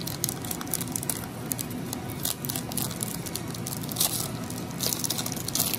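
Foil wrapper of a Pokémon booster pack crinkling and tearing as it is worked open by hand: a dense run of small crackles, with louder tearing stretches about four seconds in and near the end.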